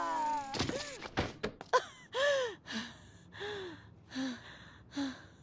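A cartoon boy's voice gasping and panting, about six short breathy gasps over four seconds, each rising then falling in pitch. A few quick clicks come about a second in, and a music cue trails off at the start.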